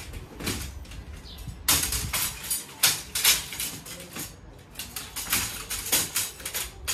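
Pieces of firewood being picked up and moved, knocking and scraping against each other and the floor in a string of irregular sharp knocks.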